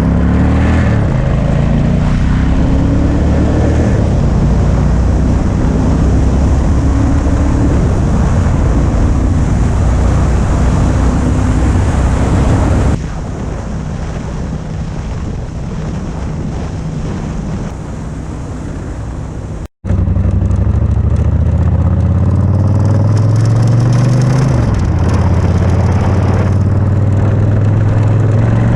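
Machinery engine running and revving, its pitch rising and falling with changing load. For several seconds in the middle it gives way to a quieter, steady machinery noise, then after a short cut the revving engine returns.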